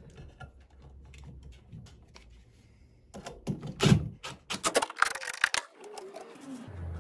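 Cordless drill driving a cable-clamp screw into a metal junction box: faint clicks of hands on the box, then about three seconds in a run of loud, rapid clicks and metallic rattling for some two and a half seconds.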